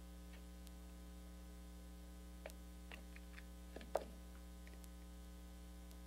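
A steady electrical hum, with a handful of faint, short clicks and scrapes of a utility knife blade chipping paint from around the screws of a metal door strike plate; the most distinct click comes just before four seconds in.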